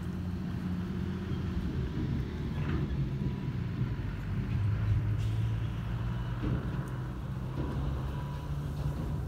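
Motor vehicle engine running, a steady low drone that grows a little louder about halfway through.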